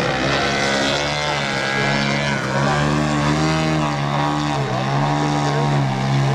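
Engine and propeller of a 50%-scale Yak 54 RC aerobatic plane running as it hovers nose-up, its pitch wavering up and down with the throttle.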